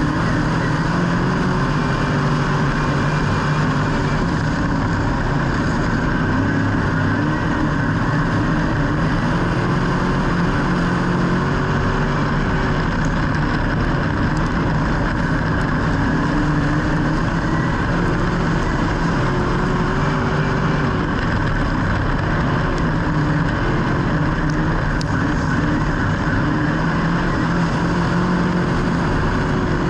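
Racing engines running continuously, their pitch rising and falling.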